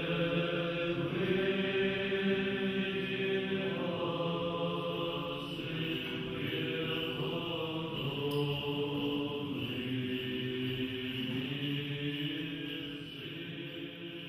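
Men's voices in Orthodox liturgical chant, holding long sustained notes that change every second or two, fading out near the end.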